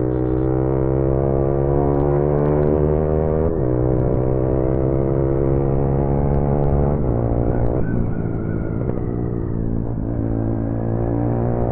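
Motorcycle engine pulling through the gears: its pitch climbs steadily, drops sharply at an upshift about three and a half seconds in, climbs again and drops at another shift around seven seconds, then runs steadier.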